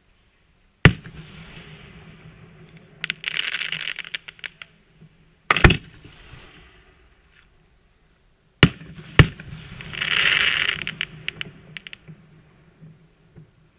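Aerial fireworks: four sharp bangs (about a second in, around the middle, and two close together near nine seconds), each followed by hissing. Twice there is a spray of rapid crackles.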